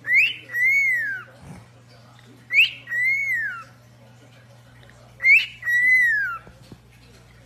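Cockatiel whistling the same two-part phrase three times, about two and a half seconds apart: a quick rising note, then a longer note that rises and falls.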